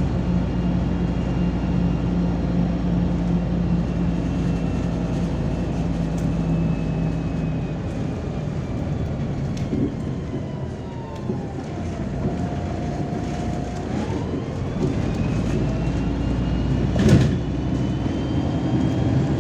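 Inside a moving MAZ-203 city bus: engine and drivetrain running, with a whine that falls in pitch as the bus slows about halfway through, holds briefly, then rises again as it picks up speed. A single thump near the end.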